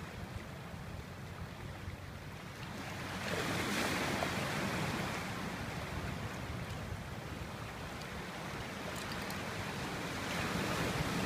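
Sea waves washing onto a pebble beach, a steady rush that swells louder about three seconds in and again near the end.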